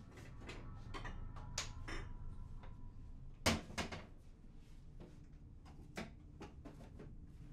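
Wooden kitchen cabinet doors being opened and shut and things on the shelves handled while someone rummages: a run of light knocks and clicks, the loudest knock about three and a half seconds in.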